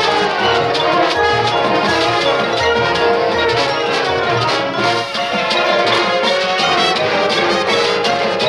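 High school marching band playing, brass section (trombones and trumpets) leading over a steady drum beat.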